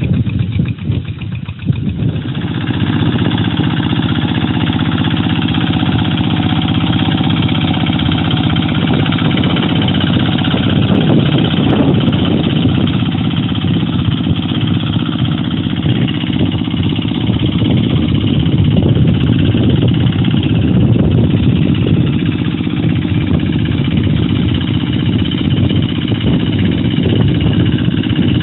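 Two-wheel hand tractor's single-cylinder diesel engine running steadily under load while plowing a rice paddy, settling into an even drone about two seconds in.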